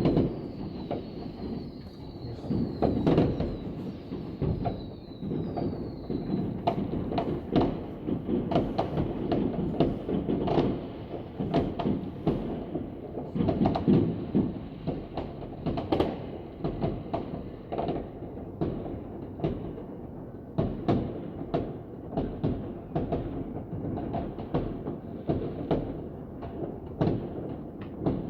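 Fireworks going off: many scattered, irregular bangs and cracks over a continuous low rumble. A thin high whistle from a whistling firework sounds in the first few seconds, sinking a little in pitch.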